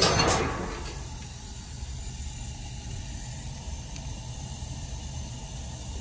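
A steam boiler's gas burners firing, a steady low rumble with a faint hiss over it. A brief loud noise sounds at the very start.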